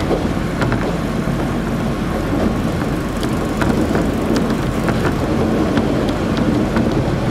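Interior noise of a KiHa 40-series diesel railcar under way: a steady low rumble of engine and wheels on the rails, with scattered light clicks and knocks.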